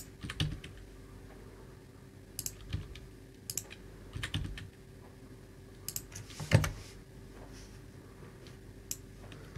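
Computer keyboard keystrokes in short scattered clusters, with long gaps between them, over a faint steady hum.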